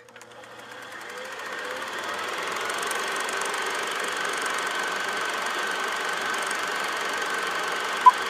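Film projector sound effect: a steady mechanical clatter that fades in over the first couple of seconds and then runs evenly, with one short high beep near the end, the beep of a film countdown leader.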